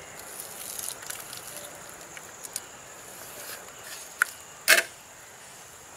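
Sliced raw onions rustling as a hand scoops and scrapes them off a plastic plate into a pot, with scattered light clicks and a sharper knock about three-quarters of the way through, the loudest sound.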